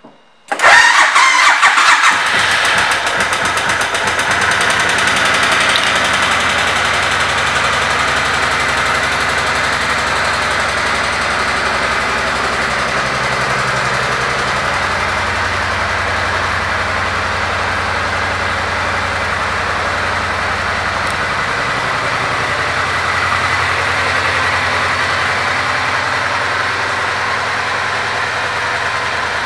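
2007 Suzuki Boulevard C90T's 1,462 cc V-twin engine starting about half a second in, louder for the first couple of seconds, then settling into a steady idle.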